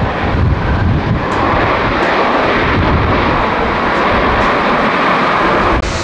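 Jet engines of a Boeing 767 (General Electric CF6 turbofans) running loud and steady as the airliner rolls out on the runway after touchdown, with gusts of wind on the microphone at first. The engine noise cuts off suddenly near the end.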